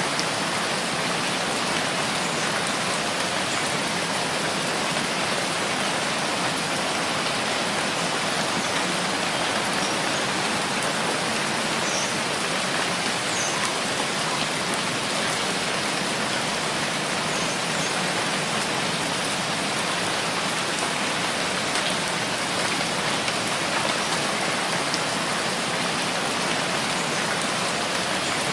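Steady rainfall: an even, unbroken hiss of rain falling on surfaces, with no change in strength.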